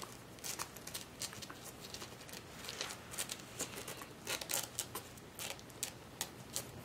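Irregular soft rustling and scratching as young Mal-Shi puppies squirm on a carpet and mouth and chew a person's fingers, with many short clicks scattered throughout and no yelps or whines.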